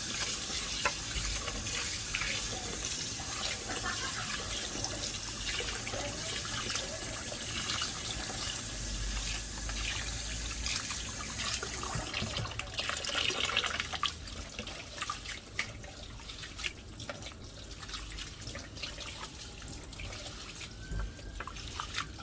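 Kitchen tap water running while rice is washed by hand in a pot. The flow stops about two-thirds of the way through, leaving scattered splashes and drips.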